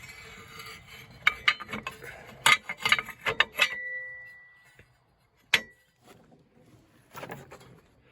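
Metal parts clinking and clanking as a coil-spring strut is worked into a homemade angle-iron spring compressor. One strike leaves a ringing tone that fades over about a second, and a single sharp knock comes past the middle.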